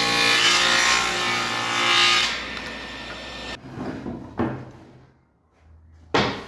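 An electric woodworking power tool running against wood, its motor hum under a dense cutting noise that fades and then stops about halfway through. Then several sharp wooden knocks and clunks, with two loud ones near the end.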